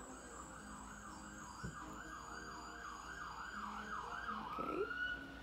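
Emergency-vehicle siren in yelp mode, sweeping quickly up and down about two to three times a second, then changing into one longer held tone near the end.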